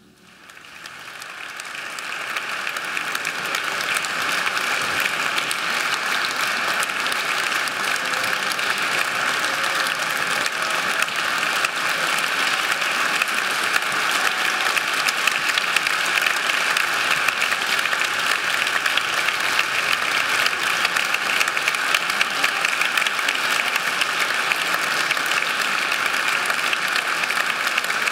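Concert audience applauding. It swells from near silence over the first three or four seconds, then goes on as steady, dense clapping.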